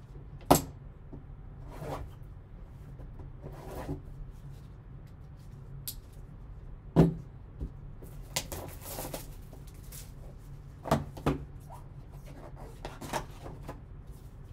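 Cardboard trading-card box handled on a table: a few sharp knocks as it is set down and tapped, the loudest near the start and about seven seconds in, a pair near eleven seconds. Between them comes rustling and scraping of cardboard and paper as the lid flap is worked open.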